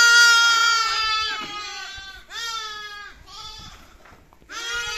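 Young lambs bleating: several wavering calls overlapping one another, the loudest right at the start, then a short lull about four seconds in before another call begins.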